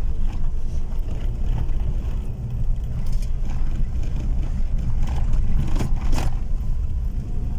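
Car interior noise while driving slowly: a steady low rumble of engine and tyres heard from inside the cabin, with a few brief knocks about three and six seconds in.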